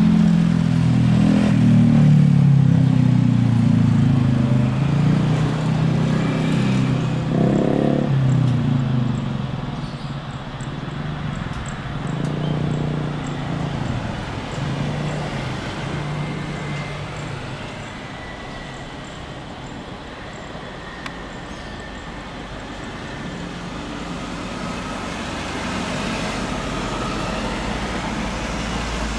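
Boeing 787-9 Dreamliner's twin jet engines at takeoff power: a loud rumble as the airliner rolls past on the runway, fading as it lifts off and climbs away.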